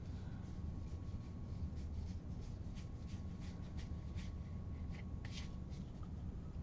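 A stack of baseball trading cards flipped through by hand, each card sliding off the next with a short, crisp tick, about two or three a second, over a steady low hum.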